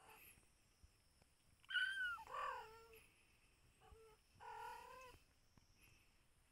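A cat meowing about four times: two falling calls close together about two seconds in, a faint short one near four seconds and a longer call just after.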